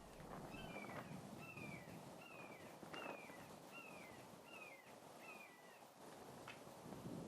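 A bird calling faintly: a run of about seven or eight short, falling chirps, evenly spaced at roughly one and a half a second, then stopping.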